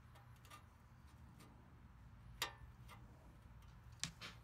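A few sharp metallic clicks from an Allen wrench working the chain-guard bolts of a mini bike, the loudest about halfway through and two close together near the end, over a faint low hum.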